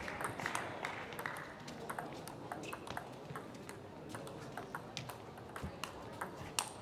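Table tennis balls clicking against tables and bats: many light, sharp ticks scattered at irregular intervals, some faint and some louder.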